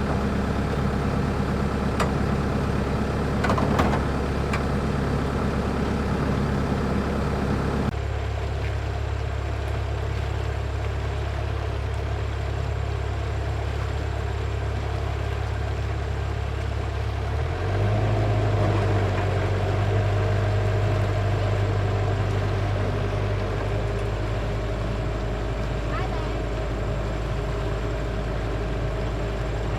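A motor or engine running steadily with a low drone; its tone changes abruptly about eight seconds in and again a little past halfway.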